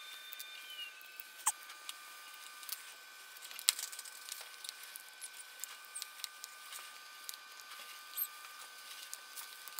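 Small irregular clicks and scratches of tools and fingers working on a Sony ZV-1 compact camera's body during disassembly, with one sharper click a few seconds in. A faint steady high whine sits behind.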